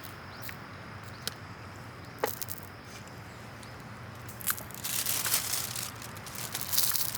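Camp gear being handled and packed away: a few scattered clicks and knocks, then about two and a half seconds of loud rustling and crinkling near the end.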